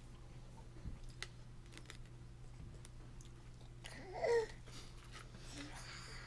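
A toddler gives a short babbling vocal sound about four seconds in, the loudest thing here, between faint clicks of a fork against a plastic plate. A steady low hum runs underneath.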